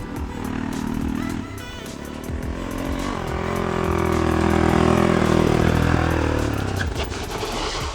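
Motorcycle engine under way, its pitch and loudness rising to a peak about halfway through and then falling away.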